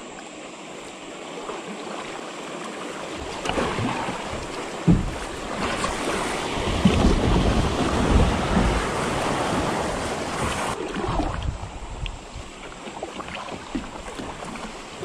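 Kayak running a shallow river riffle: rushing, splashing water around the hull, swelling through the middle and easing off near the end, with a low rumble of wind or buffeting on the microphone at its loudest.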